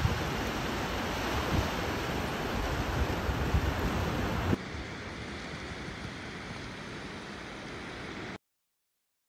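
Sea surf washing at the shoreline with wind buffeting the microphone in gusts. About four and a half seconds in it drops to a quieter, steadier wash of waves, and the sound cuts off abruptly near the end.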